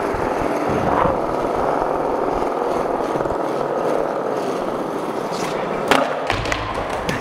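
Skateboard wheels rolling steadily over a smooth concrete floor, with a sharp knock about a second in and a louder clack of the board about six seconds in.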